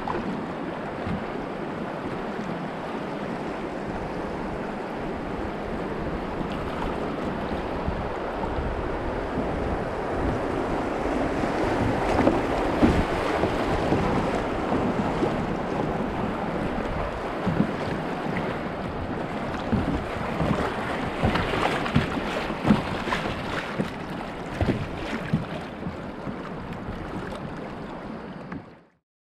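Rushing river water around a kayak running a shallow rocky riffle, with splashes from the paddle strokes and wind buffeting the microphone. The water grows louder as the boat passes through whitewater in the middle, then the sound cuts off suddenly near the end.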